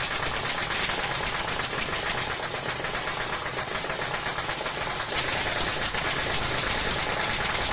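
Nail gun firing nails into a board in a fast, unbroken string of sharp shots, many a second.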